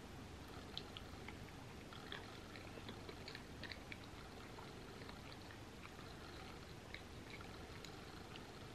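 Faint chewing of a mouthful of homemade vegan macaroni and cheese: small soft wet mouth clicks, most of them in the first half and a few more near the end.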